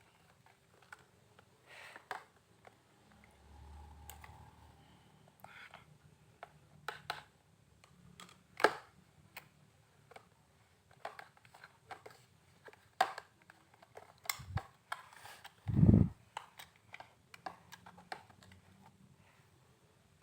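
Spoon stirring and working clay slime in a container: scattered irregular soft clicks and taps, with one heavier thump near the end.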